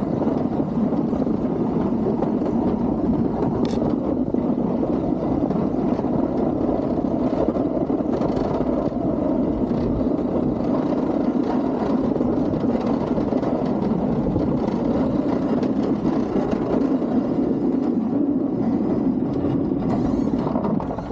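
A vehicle running with a steady, even rumble, its level drops off sharply near the end.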